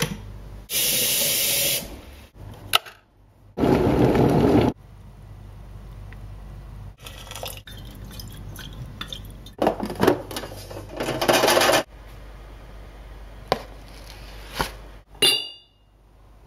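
Tea-making sounds cut into a rhythm: short bursts of rushing water, as from a tap or a pouring kettle, that start and stop abruptly, with clicks and clinks of the kettle and a ceramic teapot between them.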